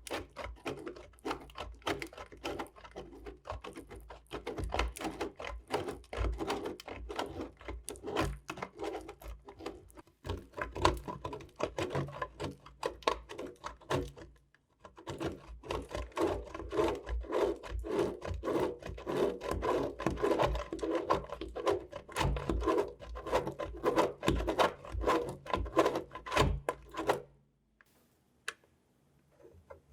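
A blade cutting through a bar of soap: a fast, dense run of small crackles and scrapes. It breaks off briefly about halfway through and stops a couple of seconds before the end.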